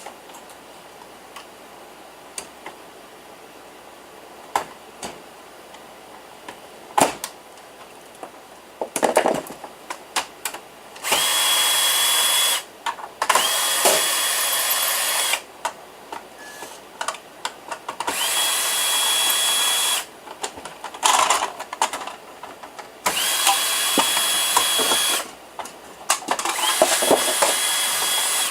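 A power screwdriver runs in five short bursts of about two seconds each, its motor whine rising quickly at each start and then holding steady, as screws are driven out of a desktop PC's parts during teardown. Clicks and the clatter of small metal parts come between the bursts.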